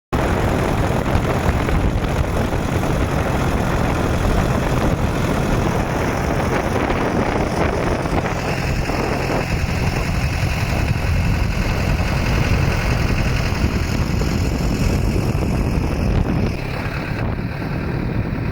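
Tractor engine running steadily, driving a homemade PTO-powered wood chipper; the sound eases a little near the end.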